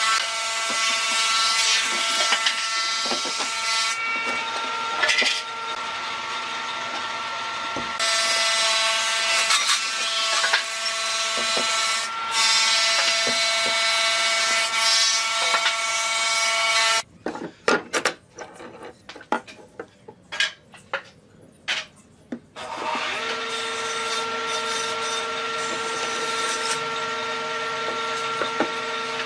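An electric power tool working wood, running with a steady whine for about seventeen seconds. It then stops for about five seconds of scattered knocks and clicks before running again.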